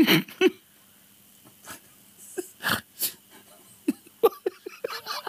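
A man laughing helplessly: a loud burst of laughter at the start, then wheezy, breathy gasps, and a run of short chuckles near the end.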